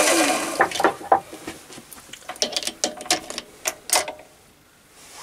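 Lathe motor switched off and spinning down, its whine falling in pitch and fading in the first moment; then a run of sharp metallic clicks and knocks as the three-jaw chuck is opened and the domed bolt taken out.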